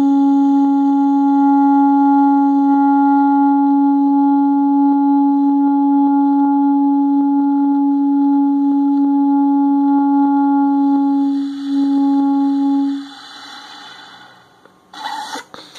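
Bass clarinet mouthpiece, reed and neck blown without the instrument's body, holding one long steady tone played clean, without air hiss. The tone breaks briefly about eleven and a half seconds in, sounds again for a second or so, then stops, leaving a faint breathy hiss.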